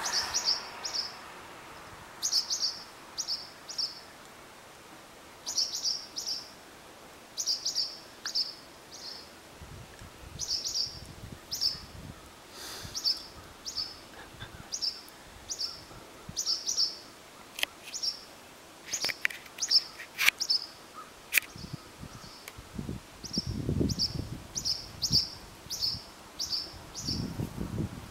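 Barn swallow giving repeated high, sharp alarm chirps in quick groups of two to four, about one group a second: a warning call at a cat near the nest. A few sharp clicks come in the middle, and low rumbles near the end.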